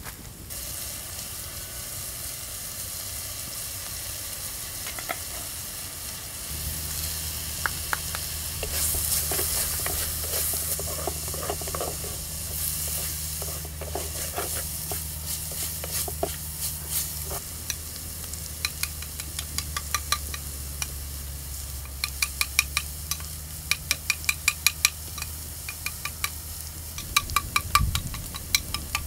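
Chopped greens sizzling and steaming in a heavy pot over a wood fire while being stirred with a wooden spoon. Later on the spoon gives a fast run of sharp clicks against the pot.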